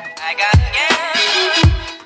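Background music: an electronic track with two deep kick-drum hits about a second apart and a wavering melody line between them.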